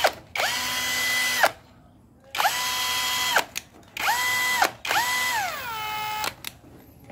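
Makita-branded 18V brushless three-mode hammer drill running with no load in four short trigger bursts. The motor whines, spins up quickly to a steady pitch and cuts off, and the last run winds down with a falling pitch. The drill's motor windings have been reworked to give more torque at a lower top speed of about 1,200 rpm, and it runs on a replacement impact-wrench control board.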